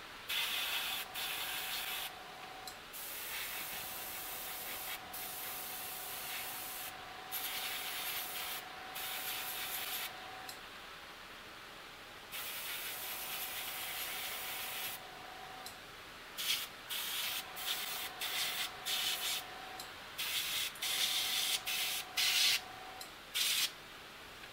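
A single-action Paasche airbrush spraying paint in on-off bursts: a hiss of air with a faint steady whistle under it. It starts with three long passes, then turns to a string of short quick bursts in the second half.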